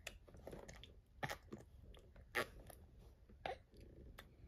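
A five-month-old baby's mouth smacking faintly on a spoon while eating puree, a handful of short smacks at irregular intervals.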